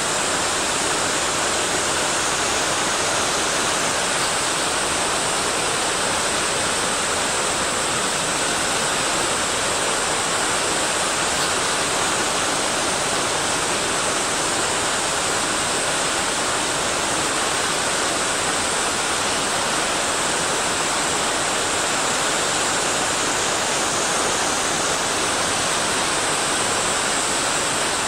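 Water pouring and rushing in a waterfall or mountain stream: a steady, unbroken rush.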